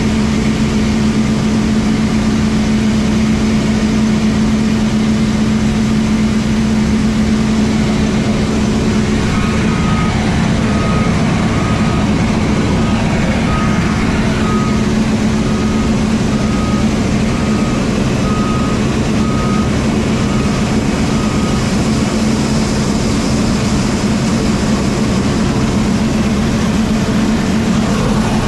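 Combine harvester running steadily at working speed, a constant heavy engine and machine drone. From about a third of the way in, an electronic beeper sounds about once a second for some twelve seconds, then stops.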